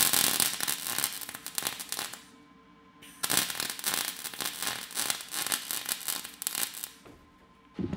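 Wire-feed welder arc crackling and sputtering as a bead is laid: a run of about two seconds, a short pause, then a longer run of about four seconds.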